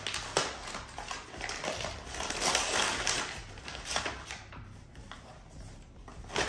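Packaging rustling and crinkling in irregular bursts as a wrapped item is handled and opened, fading off near the end.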